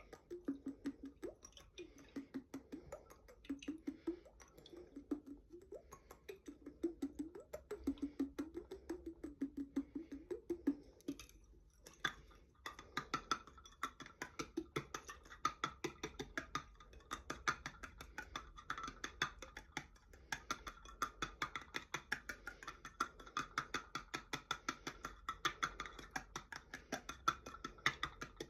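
Quick, continuous tapping on a glass jar holding water. In the first half a low tone wobbles up and down under the taps; about halfway through it changes to a steadier, higher ringing tone.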